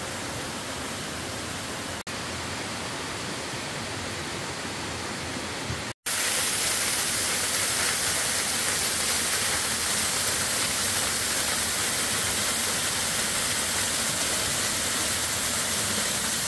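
Waterfall pouring over rocks: a steady rush of falling water. It breaks off briefly about six seconds in and comes back louder and fuller.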